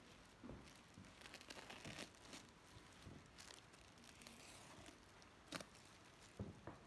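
Package wrapping being opened by hand: faint crinkling and tearing, with scattered small clicks and taps.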